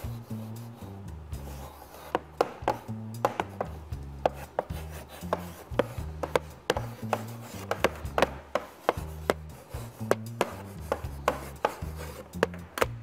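Chalk tapping and scratching on small chalkboards as two people write by hand: many quick, irregular ticks and short scrapes.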